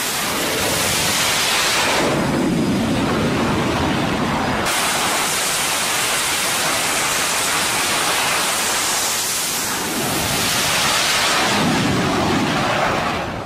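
F/A-18 Super Hornet jet engines at high power for catapult launches from a carrier deck: a loud, continuous rushing jet noise. The sound turns duller and deeper for a couple of seconds about two seconds in, then brightens again.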